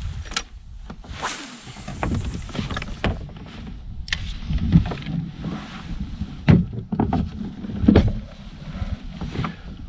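Irregular knocks and bumps on a Nordmann Thunder fishing kayak, with a low wind rumble on the microphone; the loudest knocks come about halfway through and near the end.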